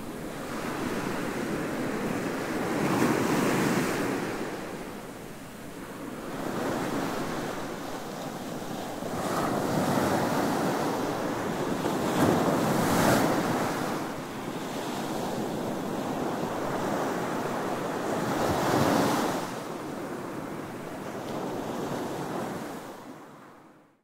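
Ocean surf breaking and washing up a sandy beach, swelling and ebbing every few seconds, then fading out near the end.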